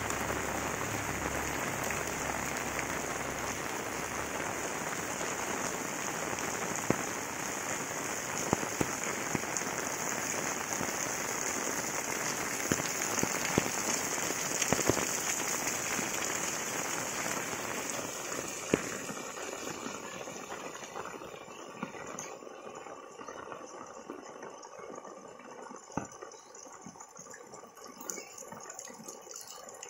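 Steady rain falling on a wet asphalt lane, roofs and plants, a dense hiss with scattered sharp ticks of drops. The rain eases about two-thirds of the way through, becoming quieter and thinner.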